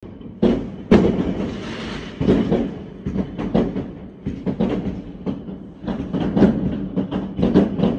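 New Year fireworks going off: a dense, irregular run of sharp bangs and cracks, some overlapping, the two loudest about half a second and a second in.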